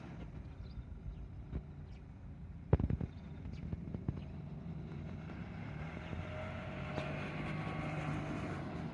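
Light rail tram running, with a tight cluster of sharp knocks about three seconds in and a steady hum and whine that build toward the end.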